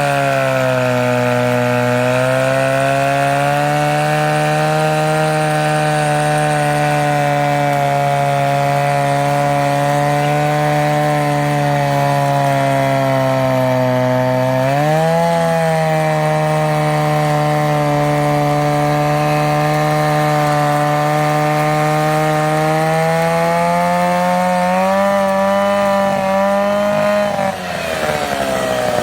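I.E.L. Super Twin two-cylinder two-man chainsaw running under load in a cut. The engine note holds steady, picks up sharply about halfway through, and climbs slowly before falling away near the end.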